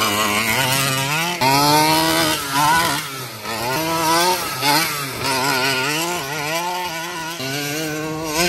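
Two-stroke petrol engine of a large-scale RC monster truck, the Primal RC Game Over, revving hard and easing off repeatedly as it drives, its pitch rising and falling many times.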